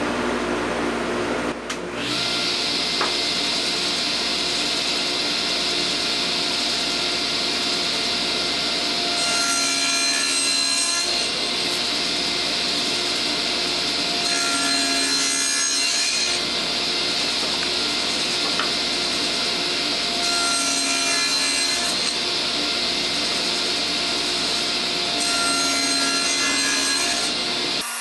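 Table saw running steadily while pieces of half-inch construction-grade plywood are pushed over its blade on end against the fence. It makes four cuts of about two seconds each, finishing dado cuts with a standard blade rather than a dado blade.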